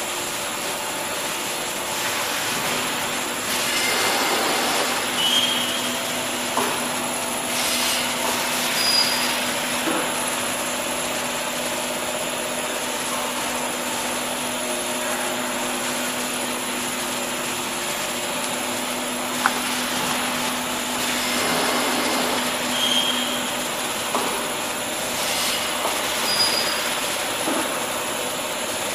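Paper egg tray production machinery running: a steady mechanical noise with a hum and a high whine. It swells every few seconds, and one sharp click comes about two-thirds of the way through.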